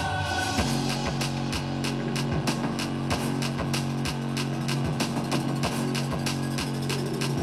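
Instrumental music with plucked guitar, a regular beat and held bass notes, played through Alpine DP-653 3-way speakers as a sound test.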